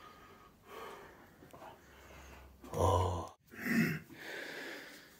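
A man breathing hard, with gasps and sighing exhales, the loudest about three seconds in, as he strains to fasten a prong lifting belt.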